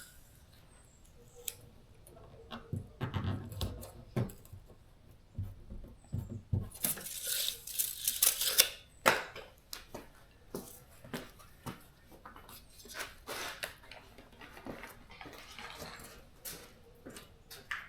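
Scattered taps, clicks and rustles of hands-on work, with a hissing rustle that lasts about a second and a half about seven seconds in.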